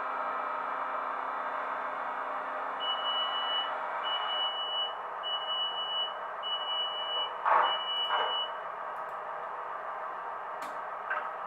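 The sound decoder of a Roco H0 BR 628.4 diesel railcar model is playing a steady engine idle through the model's small speaker while the train stands still. About three seconds in come five evenly spaced high beeps, each about a second long, and two short loud hisses come toward the end of the beeps.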